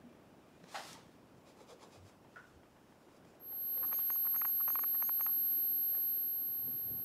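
A steady, very high-pitched ear-ringing tone sets in about halfway through, with a fainter lower tone beneath it. It is joined for about a second and a half by a quick run of squeaky, mouse-like chirps.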